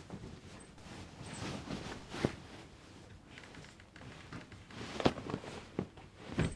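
Quiet handling sounds: soft rustling with a few light knocks or taps, the sharpest about two seconds in and again near five seconds.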